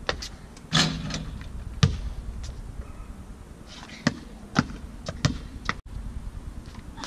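Basketball bouncing on a stone patio: a series of separate sharp thuds, a longer, ringing hit a little under a second in, then more bounces spaced about half a second to a second apart.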